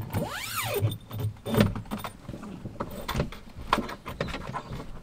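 Mesh insect screen being pulled shut and handled over the open tailgate of a Land Rover Defender: rustling with a handful of sharp clicks and knocks, the heaviest a dull thump about one and a half seconds in.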